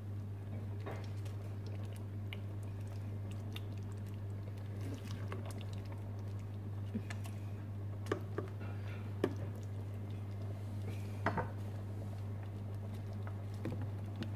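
A silicone spatula stirring daal in a stainless steel pot, with scattered light taps and scrapes against the pot, a few sharper ones in the second half, over a steady low hum.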